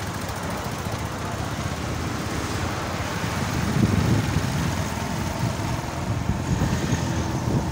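Noise of riding on a motorcycle through town: a steady low rumble of engine, road and wind, swelling for a while about four seconds in.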